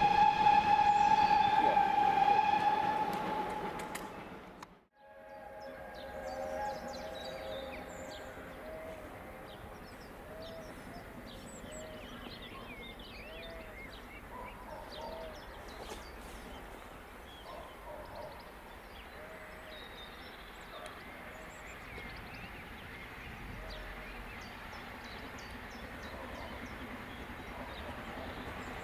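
A steam locomotive's whistle sounds a steady, loud note for about four seconds, then stops abruptly. After that come a quieter stretch of birds chirping and faint rail noise.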